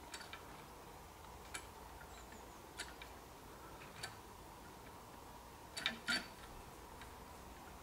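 Faint, evenly paced metallic strikes of a mechanical level-crossing barrier's warning bell, about one every second and a quarter, with a louder double strike about six seconds in.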